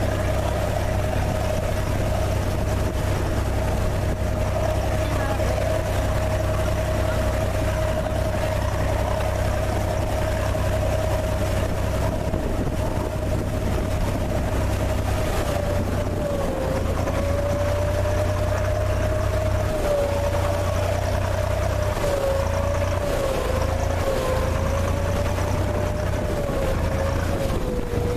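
Small harbour sampan's inboard engine running steadily under way, a constant drone with a held tone that wavers and drops slightly in pitch near the end as the engine eases off.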